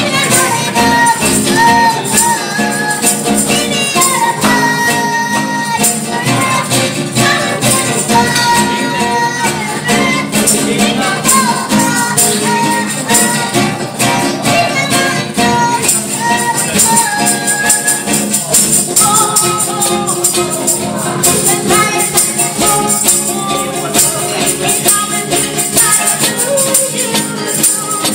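Live acoustic guitar strummed to accompany a young girl singing a melody, with a jingling shaker-like percussion keeping a steady rhythm.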